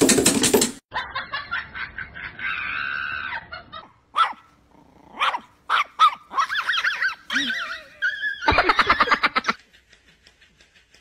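A cat's short harsh yowl, then a small dog barking in short bursts over several seconds.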